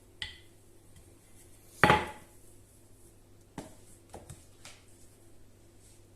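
Kitchen clatter: a few short knocks of a dish or utensil being set down on a worktop, with a brief ring. The loudest comes about two seconds in, followed by three lighter taps.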